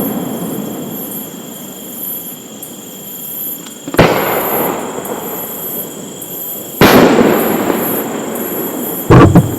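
Aerial fireworks shells bursting: three loud booms, about four, seven and nine seconds in, the last one doubled, each trailing off in echo.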